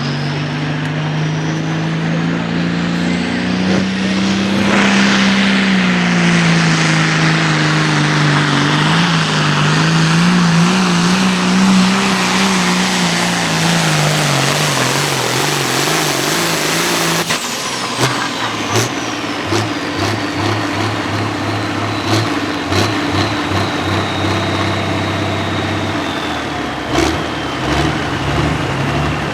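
Turbocharged diesel pulling tractor running at full power down the track, its engine note wavering under load while a high turbo whistle climbs. About seventeen seconds in the throttle is cut. The engine drops to a choppy, lower running and the turbo whine slowly winds down in pitch, marking the end of the pull.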